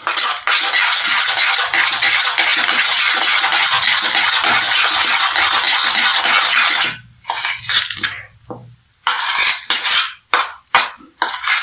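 Steel spoon beating thick semolina batter in a bowl, mixing in baking soda. Fast, continuous scraping and slapping for about seven seconds, then slower, separate strokes.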